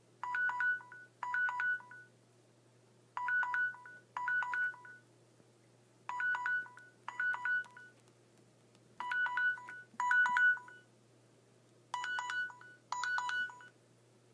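Smartphone alarm going off: pairs of short electronic chiming bursts, each a quick run of beeping notes, repeating about every three seconds, five pairs in all. It stops shortly before the end, after the alarm is swiped off.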